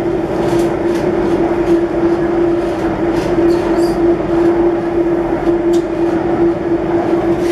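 Running noise inside a Delhi Airport Express Line metro train moving at speed: a steady rumble with a constant hum, and faint clicks now and then.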